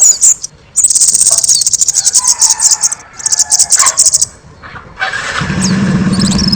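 Kemade songbird singing loudly in rapid, high-pitched trills, two long runs about a second apart. About five seconds in, a loud harsh buzzing sound with a high thin whistle over it takes over and lasts a couple of seconds.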